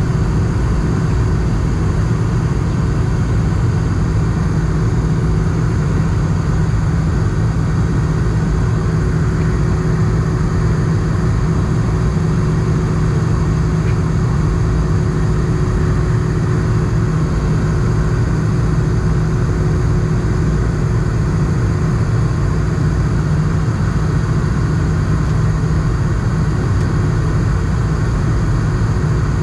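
Steady cabin noise inside an Airbus A220 airliner in flight: its Pratt & Whitney geared turbofans hum under rushing airflow. There is a low steady drone throughout, and a fainter higher tone that fades out about two-thirds of the way through.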